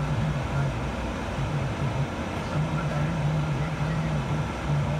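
A low voice talking indistinctly in the background, over a steady hum of noise.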